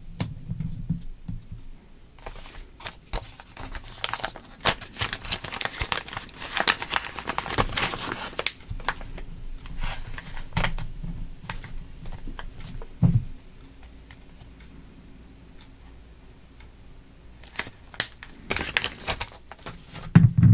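Plastic component cut tape and a card parts sheet being handled, crinkling and rustling with many small clicks for about ten seconds. There is a soft knock about 13 seconds in, then a short rustle near the end.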